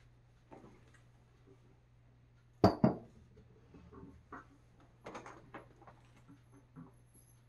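Two sharp knocks in quick succession about two and a half seconds in, followed by a scatter of lighter clicks and knocks as household objects are moved and handled, over a faint steady hum.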